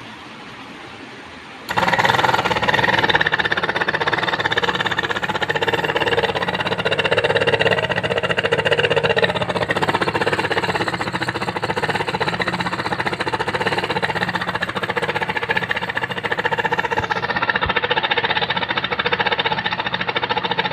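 Small DC motor fan of a homemade battery-powered mini ventilator switched on a couple of seconds in, then running steadily at full speed.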